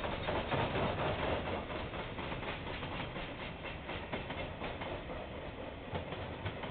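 A KiwiRail freight train's container wagons rolling past on the rails: a steady rumble of wheels with irregular clicks over the rail joints, easing a little near the end as the last wagons go by. Heard through a security camera's microphone, dull and without highs.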